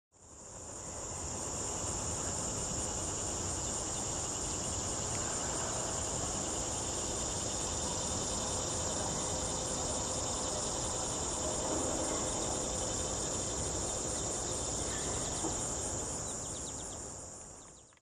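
A steady chorus of crickets trilling in one continuous high band. It fades in over the first second and fades out at the end.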